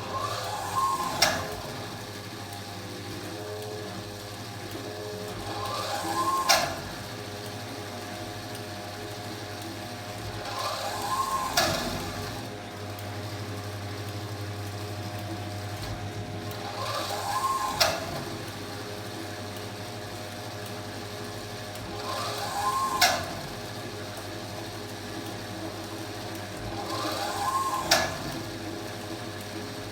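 Washing machine tumbling its drum in the wash phase, over a steady low hum. About every five seconds the motor whine rises and falls in pitch, and each time it ends in a sharp click, six times in all.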